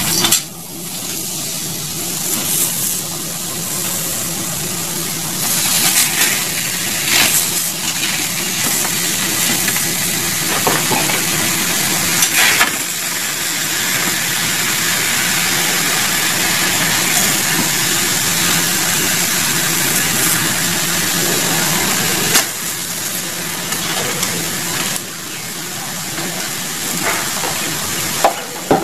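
Steady sizzling hiss from a hot salt-lined pan over a gas burner as whole fish are laid onto it, with a few short knocks as they are set down.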